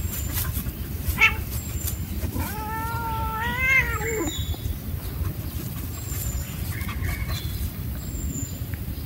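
Kitten letting out one long, wavering meow that rises and then falls, about two and a half seconds in. There is a short sharp sound about a second in and a steady low rumble throughout.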